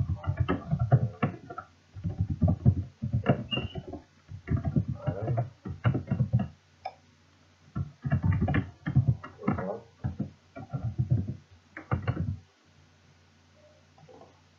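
A man's voice speaking indistinctly in short phrases, stopping about two seconds before the end.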